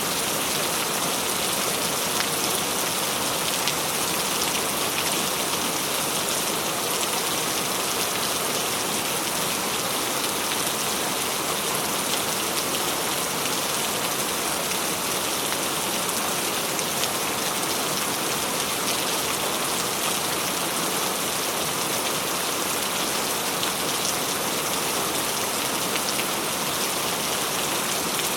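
Steady rain falling, a dense even hiss with many small drop ticks and no thunder.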